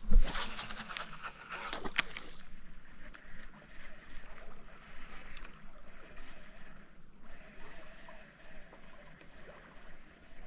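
A loud splash of water close by, lasting under two seconds, followed by soft lapping of water against a kayak.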